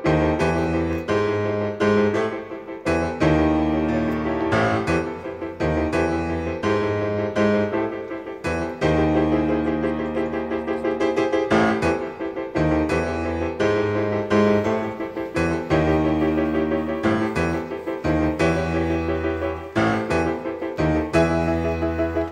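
Soundtrack piano music: a steady run of struck notes over low held bass notes.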